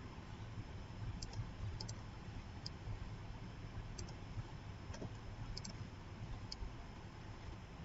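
Computer mouse buttons clicking about ten times, singly and in quick pairs, over a steady low hum.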